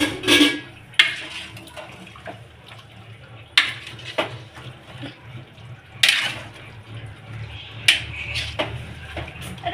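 Steel spoon stirring vegetables and meat in an aluminium pressure cooker, knocking against the pot several times, over a steady low hum.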